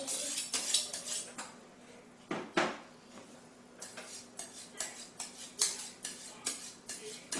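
A dull chef's knife being sharpened on a sharpening steel: quick metal-on-metal scraping strokes, about three a second, with a couple of short pauses.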